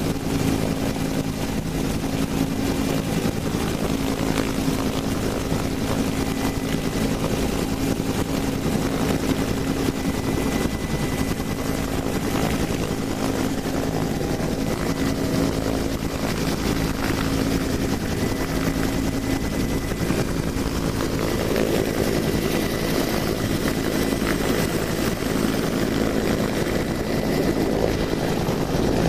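Helicopter's turbine engine and main rotor running steadily in a hover, heard from the open cabin door, with an even low drone.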